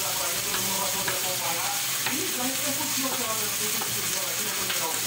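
Food sizzling steadily as it fries in a pan, with a few sharp knife taps on a wooden cutting board.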